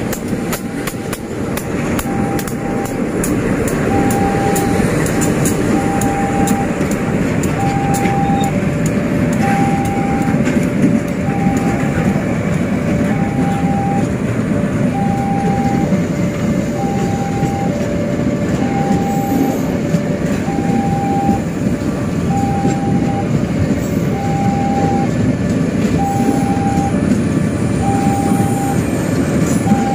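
Bulk cement hopper wagons of a freight train rolling past with a steady rumble and the click of wheels over rail joints, the clicks most frequent in the first ten seconds. Over it a level-crossing alarm rings two alternating notes, one short note about every second.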